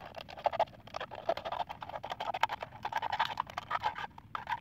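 Thin plastic bottle crackling and clicking rapidly and unevenly as it is squeezed and turned in the hands.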